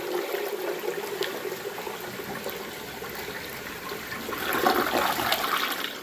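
Toilet flushing: water rushing and swirling down the bowl, swelling to a louder surge about four and a half seconds in, then dropping off near the end. The bowl drains freely, showing no restriction in the toilet.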